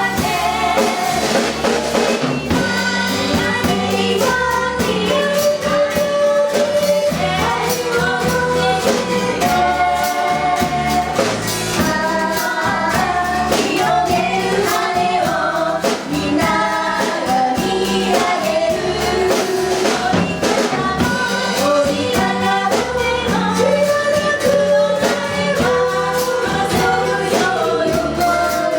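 A large band playing live, with voices singing a melody over the instruments and a steady beat of percussion.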